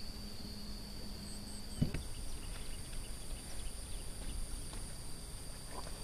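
Outdoor field ambience: a steady low rumble and a thin, steady high whine, with one short low grunt-like call about two seconds in, the loudest sound.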